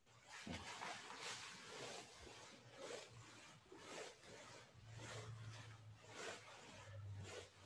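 Near silence with faint, repeated rustling of a jiu-jitsu gi as its wearer does air squats.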